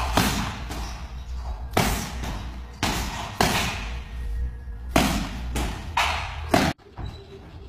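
Medicine ball slammed onto a gym floor: a series of heavy thuds about once a second over background music, cutting off suddenly near the end.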